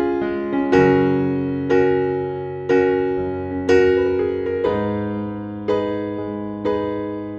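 Background music on a keyboard, piano-like in tone. A new chord is struck about once a second and rings and fades until the next.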